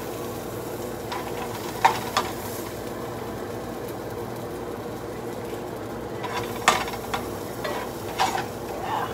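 Tilapia and shrimp cooking: a steady sizzling hiss over a low hum. A few sharp knocks of a plastic dish and utensils come through, two about two seconds in and two more in the last few seconds.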